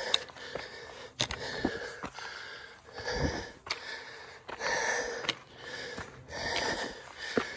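A hiker's heavy breathing close to the microphone, a breath about every second, with footsteps on a dry dirt trail.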